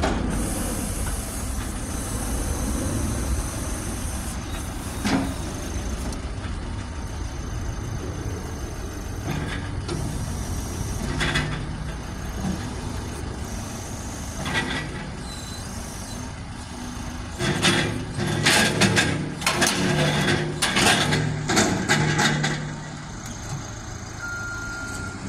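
Caterpillar 415F2 loader's diesel engine running steadily, with scattered single knocks and then a run of loud clunks and clatter for several seconds past the middle. A reversing alarm starts beeping about a second before the end.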